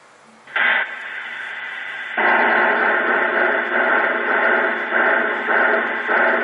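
Steam locomotive sound effects from the small speaker of a model train display's sound unit: a short burst about half a second in, then a steady hiss that gets louder about two seconds in and waxes and wanes.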